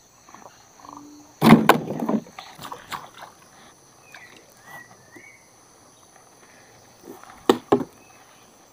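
A burst of knocking and rattling about a second and a half in, and two sharp knocks near the end, over the steady high chirring of crickets. A few short chirping calls come in the middle.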